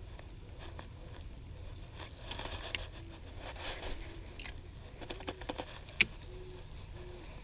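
Crunching and scraping noises with scattered clicks, ending in one sharp click about six seconds in, over a low rumble. Soft, short, low coos repeat about once a second from the middle on, like a dove calling.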